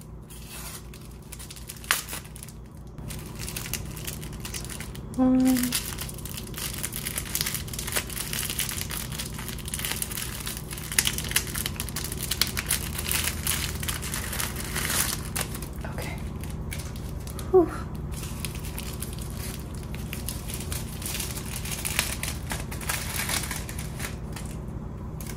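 Thin plastic film wrapper of a Korean triangle kimbap (samgak kimbap) crinkling and rustling as it is peeled and pulled apart by hand, with scattered sharp crackles.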